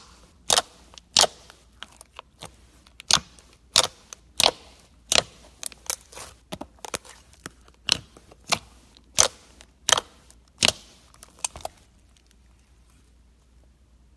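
Fingers poking into glossy slime, air pockets popping in sharp, crisp clicks about one to two a second, stopping about twelve seconds in.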